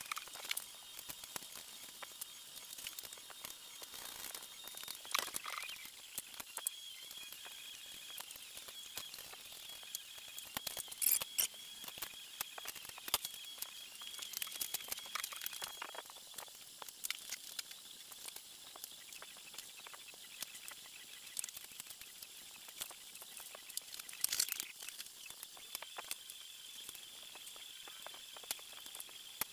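Scattered light clicks, taps and scraping of hand work on an ATV, with a faint steady high whine for parts of the time; the loudest clicks come about a third of the way in and again near the end.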